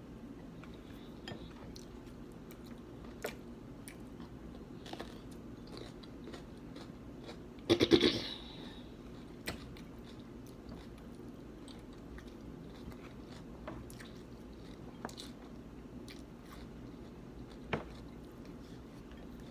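A person eating close to the microphone, chewing and crunching food, with scattered small clicks and a louder burst of sound about eight seconds in.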